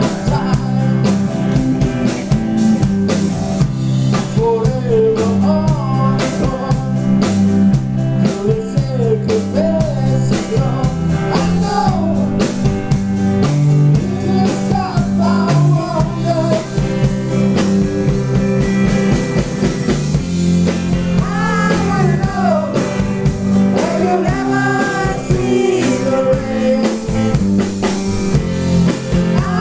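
Rock band playing live and loud: a male singer over electric guitar, bass guitar and drum kit.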